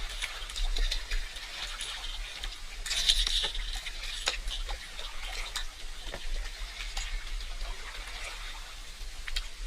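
Water splashing and trickling, with many small drips and splashes and a louder splash about three seconds in.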